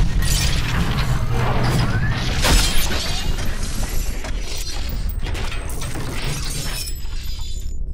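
Logo-reveal sound effects of metal parts: dense clattering and clanking with shattering crashes over a deep low rumble. The clatter cuts off shortly before the end, leaving a low hum.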